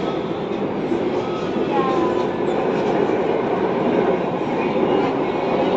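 Mumbai Metro train running at speed, heard from inside the carriage: a steady rumble of the wheels on the rails, with faint brief wheel squeals about two seconds in.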